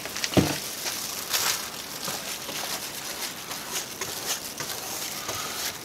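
Paintbrush dabbing and stroking epoxy resin into glass-fibre cloth, an irregular scratchy brushing, with a single knock about half a second in.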